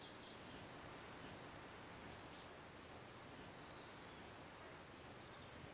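Near silence: a faint steady hiss with a thin, constant high-pitched whine, the background noise of an old VHS tape recording.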